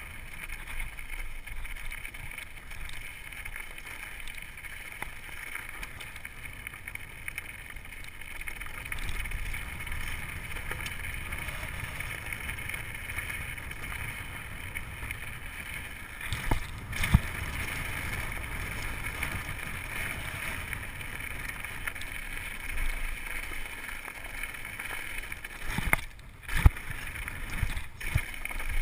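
Mountain bike riding down a rough downhill trail, heard from a chest-mounted camera: a steady rumble and rattle of tyres and bike, with wind on the microphone. Sharp knocks from hard bumps come in a cluster about halfway through and again near the end.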